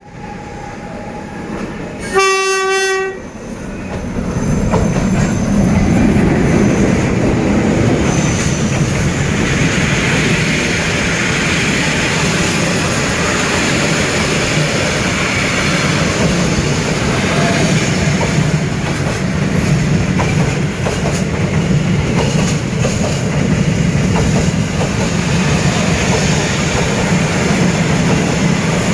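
A diesel locomotive's horn sounds one blast of about a second, a couple of seconds in. Then a freight train of D18E and D11H diesel locomotives hauling a long string of boxcars passes close by, with a steady heavy rumble and wheels clattering over the rail joints.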